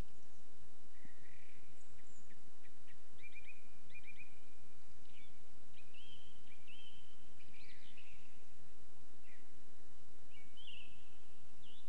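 Birds singing at first light: scattered short whistled notes, quick upward sweeps and a few held phrases, one after another, over a steady background hiss.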